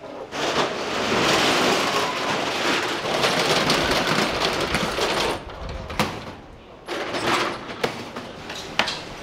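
Metal roller shutter rattling loudly for about five seconds as it is rolled up, then a few sharp clicks and knocks.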